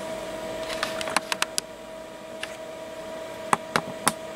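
Steady low-level background hum with about ten light, sharp clicks and taps scattered through it.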